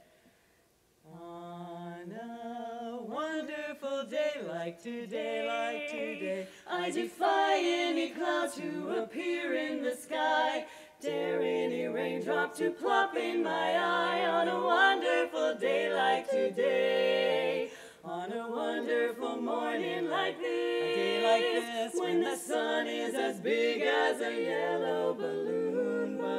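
Women's barbershop quartet singing a cappella in four-part close harmony, starting about a second in after a brief silence, with short breaks between phrases.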